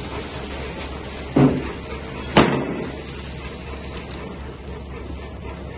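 Three-side-sealing plastic bag making machine running with a low steady hum, and two sharp knocks about a second apart in the first half, the second a sharper click.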